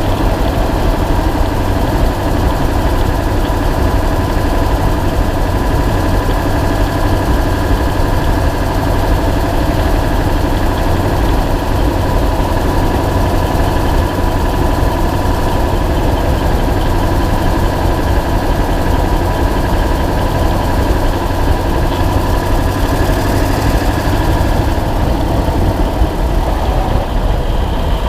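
Ford 7.3 L Power Stroke V8 turbo-diesel running steadily, heard close up from a camera mounted on the truck's suspension spring. The sound carries the tick of an exhaust leak.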